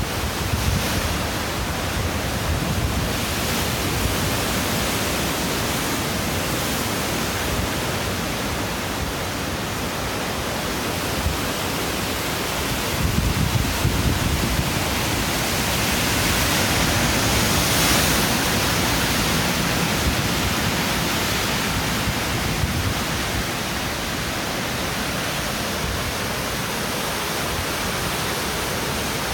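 Ocean surf breaking and foaming over a rocky shore: a continuous rushing wash of water that swells a little about halfway through.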